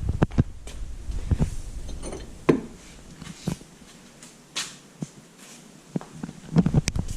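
Handling noise from a recovery strap and metal shackle being worked at a trailer hitch: scattered knocks and clicks with rustling, a few sharper clicks near the end.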